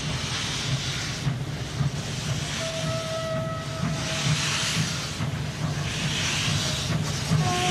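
Steam locomotive hissing steam, the hiss swelling and falling about every two seconds over a low rumble. A faint whistle sounds twice, about three seconds in and near the end.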